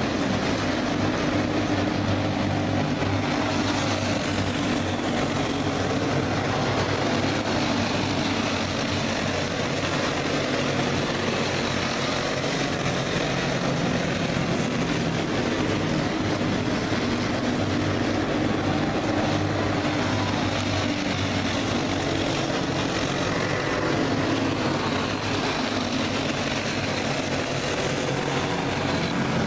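A pack of racing go-karts with four-stroke single-cylinder clone engines running at speed together, a steady, unbroken engine drone with no single kart standing out.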